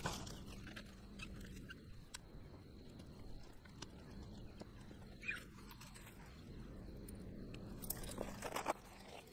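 Faint footsteps in sandals on a gravelly, shell-strewn shore and the rustling and scraping of fishing gear being handled, with a few louder scrapes about five seconds in and near the end, over a low wind rumble.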